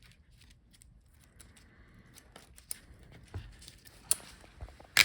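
Hands working a laptop's LCD panel and video cable: scattered light clicks and faint rustling of small plastic parts, with two sharper clicks near the end.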